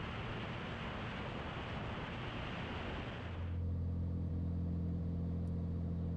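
Rushing airflow and engine noise of a light aircraft in flight, cut off about halfway through. It gives way to a Beechcraft Bonanza's piston engine turning over at low power on the landing rollout: a steady low hum with the propeller spinning.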